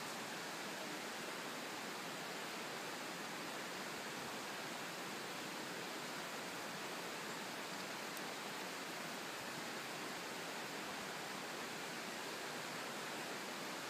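Steady, even hiss with no distinct events, unchanging in level throughout.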